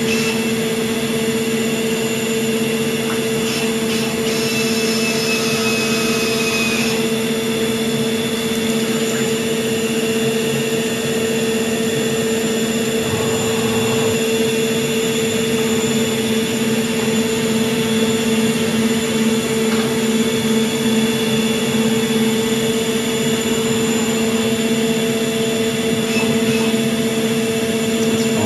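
A 1988 Mori Seiki MH50 CNC horizontal machining centre running with its spindle turning: a steady mechanical hum with a whine that holds constant throughout. A faint higher whistle sounds for a few seconds and sags slightly in pitch near the start.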